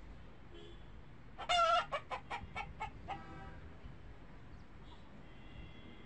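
A domestic fowl calling: one loud call, then about six short clucking notes in quick succession that fade away, with fainter bird calls behind.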